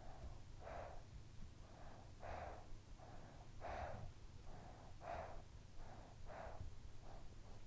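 A sleeping child breathing quietly: soft, regular in-and-out breaths, a weaker and a stronger puff about every one and a half seconds, over a faint low rumble.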